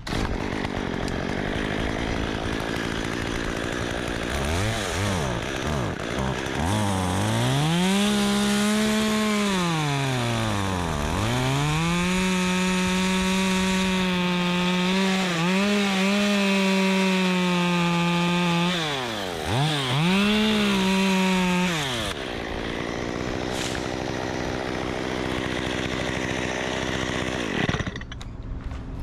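Two-stroke chainsaw idling, blipped a few times, then held at full throttle for about fifteen seconds while cutting through a branch, its pitch dipping several times as the chain bogs in the wood, before dropping back to idle near the end.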